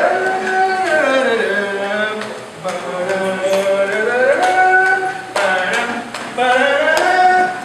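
A voice singing long, held notes that slide smoothly from one pitch to the next, in several phrases with short breaks.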